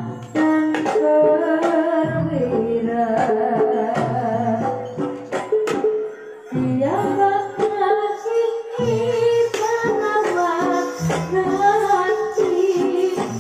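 Javanese gamelan music for a barongan trance dance: a woman sings a gliding melody over the ensemble, with sharp drum strokes, amplified through a sound system.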